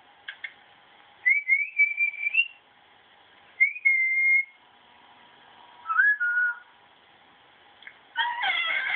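A person whistling three short calls to a dog, each a clear single note with a slight upward slide. Near the end comes a brief wavering cry.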